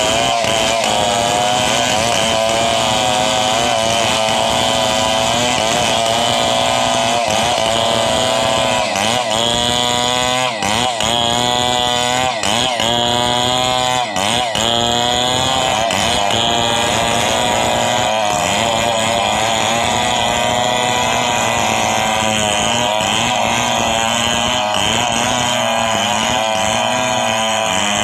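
Stihl MS 070 two-stroke chainsaw running at high revs, cutting through a coconut palm trunk. Its pitch wavers and dips again and again in the middle as the chain bogs under load, then holds steadier near the end.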